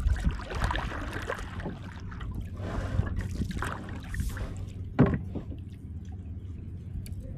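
Kayak paddle strokes: water splashing and dripping off the paddle blades in uneven surges over a steady low rumble, with a louder thump about five seconds in.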